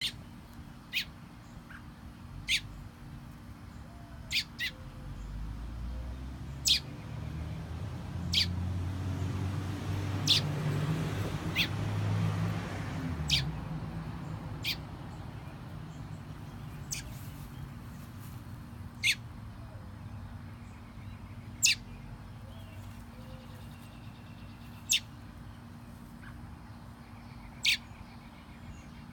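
A bird repeating a single short, sharp call note about fifteen times, one to three seconds apart. A low rumble rises and fades away in the first half.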